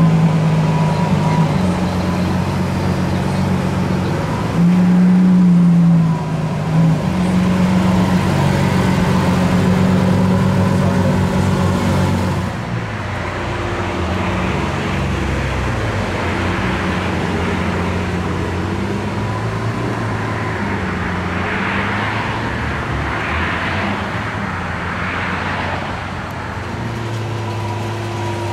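Lamborghini Sián FKP 37's V12 engine running at low revs, with a short rise in pitch and level about five seconds in. About halfway through it settles to a quieter, steady low-rev note.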